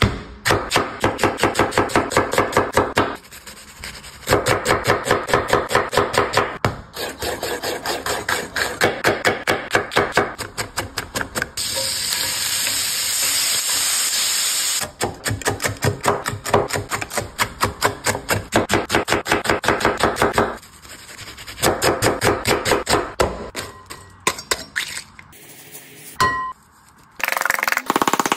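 A quick run of kitchen food-preparation sounds: rapid, rhythmic clicks and handling noise, with bacon sizzling in a frying pan for about three seconds around the middle.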